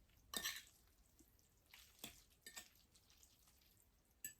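Faint eating sounds from a bowl of ramen: a few soft slurps and small clicks of utensils, the clearest about half a second in.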